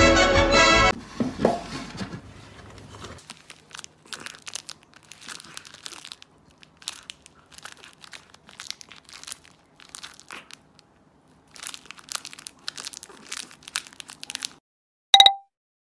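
A cat chewing and licking a plastic snack wrapper held in its paws: the wrapper crinkles and crackles in small irregular bursts. Near the end there is a single short electronic beep, the loudest sound.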